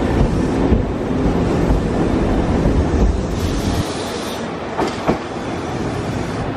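Nankai electric commuter train running past on the rails: a steady rumble of wheels on track whose low end eases about four seconds in, with a sharp click about five seconds in.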